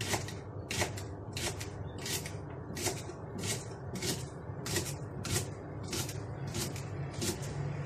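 Kitchen knife slicing through a leek onto a plastic cutting board: crisp, evenly paced cuts, about three every two seconds, over a steady low hum.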